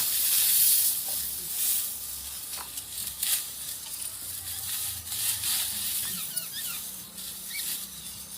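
Dry wheat stalks rustling and crackling as they are harvested, loudest in the first couple of seconds, with a few sharp snaps. Birds chirp briefly in the second half.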